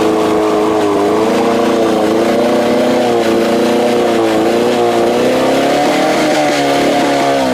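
Four-cylinder two-stroke engine of a 1960s Mercury 45 hp outboard (Merc 400), freshly tuned up, running in a test barrel. Its speed wavers gently up and down. The owner suspects it may not be running on both carburettors.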